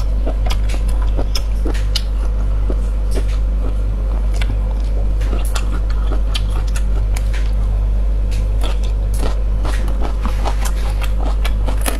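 Close-miked chewing of coiled sausage: many irregular wet clicks and smacks from the mouth, over a steady low hum.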